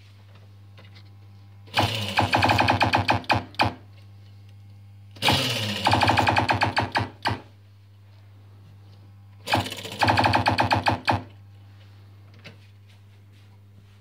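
Williams Whirlwind pinball machine in its switch-test mode sounding three bursts of fast repeated pitched buzzing pulses, each lasting a second and a half to two seconds, over a steady low electrical hum.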